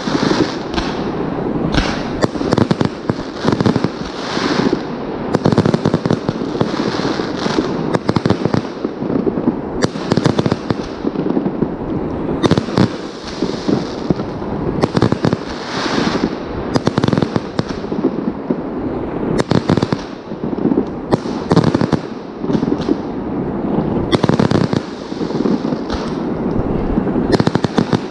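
Aerial firework shells bursting overhead in a dense, continuous barrage: sharp bangs and crackling one on top of another with no break.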